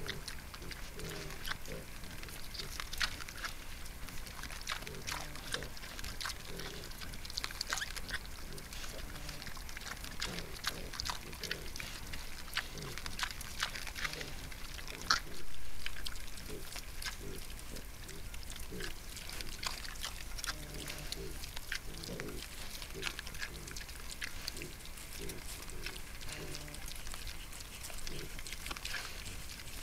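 Wild boars, a sow and her striped piglets, giving short low grunts as they root and feed, among many small clicks and crunches from the ground. A brief louder noise comes about halfway through.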